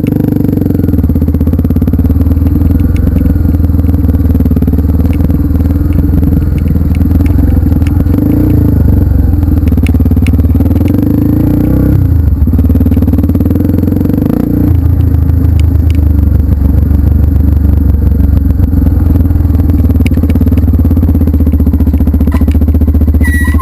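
Trail motorcycle engine running loud and close, with an even pulsing beat. It eases off briefly about halfway, then picks up again.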